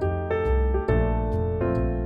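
Background music: soft keyboard chords in the manner of an electric piano, with light high ticks keeping time.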